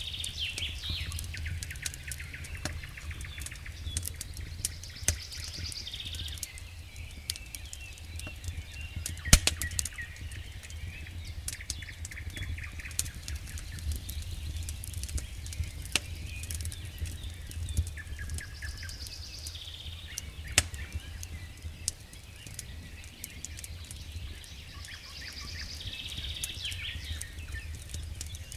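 Wood campfire crackling, with many small snaps and a few sharp pops (the loudest about a third of the way through) over a low steady rumble. A bird calls again and again in the background, every several seconds.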